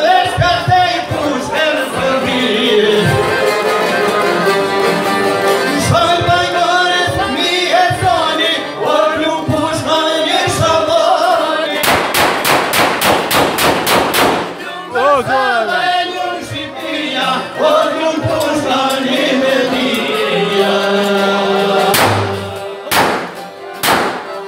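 Live band music: a man singing into a microphone over violin, accordion and a long-necked lute. About halfway through comes a run of fast, even strokes, about five a second, for two or three seconds, and near the end a few sharp knocks.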